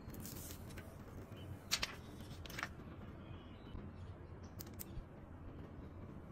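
Fingers and fingernails handling a Samsung Galaxy S22 Ultra, giving a few short sharp taps and clicks on the phone's glass and frame, the loudest about two seconds in, over a steady low hum.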